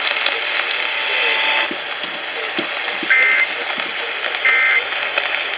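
Emergency Alert System end-of-message: short bursts of two-tone digital data screech repeating about every second and a half, over steady radio static. They mark the end of the alert broadcast.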